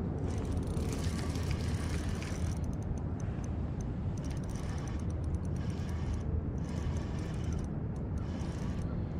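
Spinning reel being cranked in spells while fighting a hooked spotted bay bass, a fine mechanical whirring and clicking that stops and starts, over a steady low rumble.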